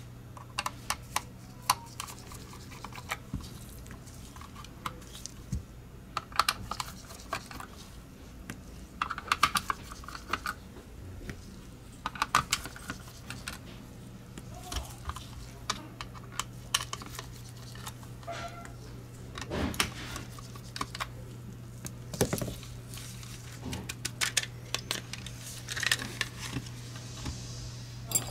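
Irregular light clicks and taps of a precision screwdriver working the screws out of a Logitech G Pro X Superlight mouse's base, with the small screws set down and the plastic mouse shell handled on the work mat. A steady low hum runs underneath.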